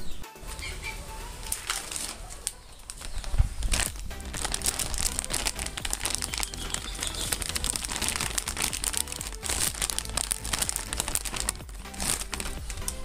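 Clear plastic packaging of a new motorcycle clutch cable crinkling as it is handled, from about four seconds in until near the end, over background music.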